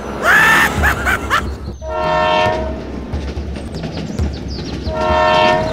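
Two short blasts of a train horn, about three seconds apart, over a steady low hum.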